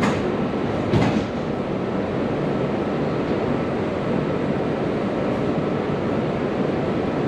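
Steady running noise of a Hanoi Metro Line 2A train, heard from inside the car. Two short knocks come near the start, about a second apart.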